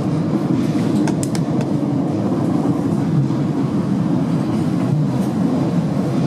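Class 455 electric multiple unit running along the line, heard from inside the carriage: a steady rumble of wheels on rail, with a few faint clicks about a second in.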